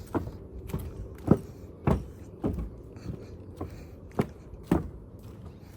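Footsteps on a boardwalk, a steady walking pace of a bit under two sharp steps a second.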